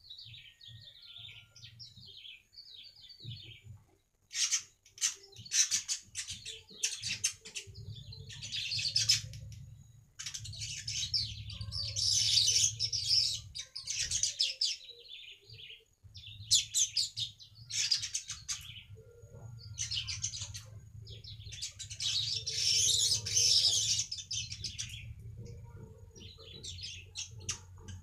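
Manyar (weaver bird) singing: repeated bursts of chattering song, some short, others a couple of seconds long, with gaps between. A low steady hum sits under most of it from about a quarter of the way in.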